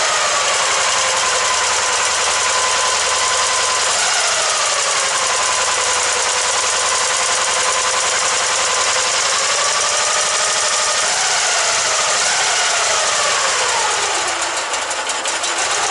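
Dnepr motorcycle's flat-twin engine running freshly started after a cylinder replacement, its revs rising and falling several times under the throttle. About fourteen seconds in it drops to a slower, pulsing idle.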